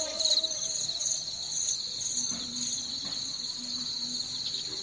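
Crickets chirping: a steady, high-pitched trill.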